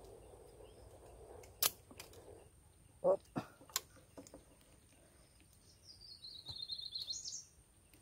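Pruning shears snipping thin bamboo twigs: a few sharp snips between about one and a half and four seconds in. Near the end a bird calls with a quick run of chirps that drops in pitch and then rises.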